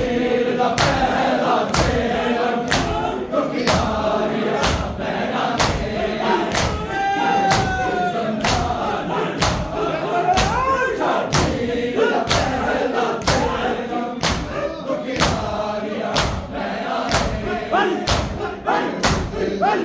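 Congregation of mourners doing matam, slapping their chests in unison about twice a second, while a chorus of men's voices chants a noha over the beat.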